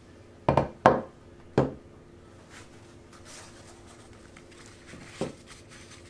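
A glass baking dish knocking on a table top as it is set down, three sharp knocks in the first second and a half. Then the soft rustle of a sheet of kitchen paper being laid into the dish and pressed flat, with a light knock about five seconds in.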